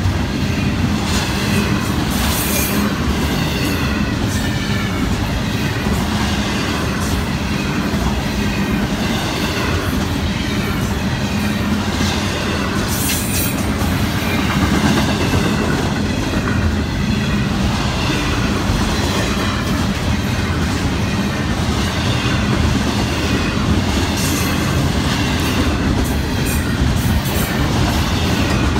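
Double-stack intermodal container cars of a freight train rolling past at speed: a steady rumble and clatter of steel wheels on the rails, with a few brief high-pitched screeches.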